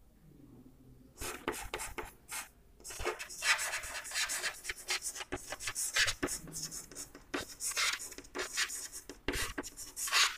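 Chalk scratching on a chalkboard as a line of words is written out, in many short quick strokes and taps, starting about a second in.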